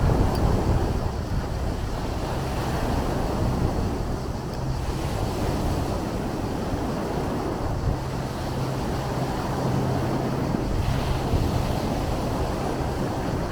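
Sea waves washing and surging in a continuous wash of surf, with wind noise on the microphone. A faint, steady low hum comes and goes underneath.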